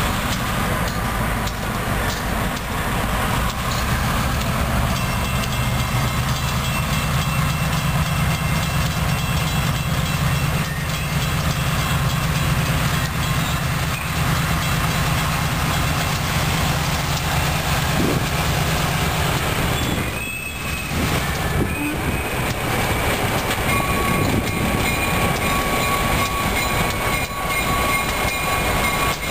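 Two EMD diesel freight locomotives, an MP15AC and a GP38-2, approaching with their engines running in a steady low drone as they pull a string of freight cars. In the last third a steady high-pitched tone sounds over the engines.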